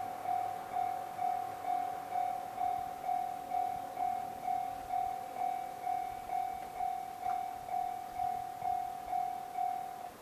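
Railway level-crossing warning bell on the Ōfunato Line, ringing a steady repeated ding a little over twice a second, then cutting off suddenly near the end as the warning ends.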